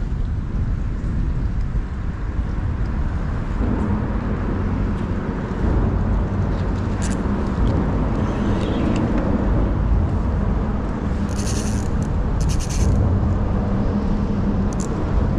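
Wind buffeting the microphone as a steady low rumble, with a few short rattling clicks around the middle and near the end.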